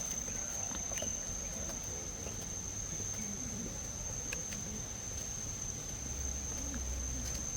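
Insects in the forest trilling in one steady, unbroken high-pitched tone, over a low background hum.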